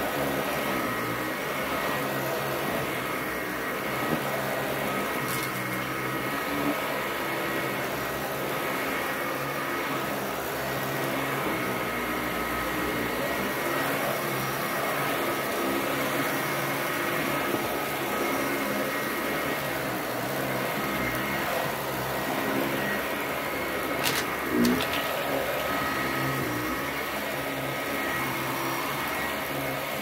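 Upright vacuum cleaner running steadily as it is pushed back and forth over a rug and floor mat, with a few knocks as it bumps along, the loudest near the end.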